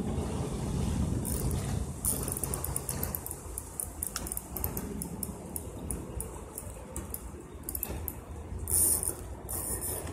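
Fishing reel clicking in quick runs of fine ratchet-like ticks while the line is snagged on rocks, over a low steady rumble. Short bursts of rustling hiss about a second in and again near the end.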